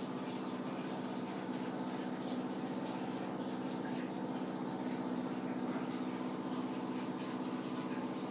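Gas tankless water heater's burner running steadily with a low hum.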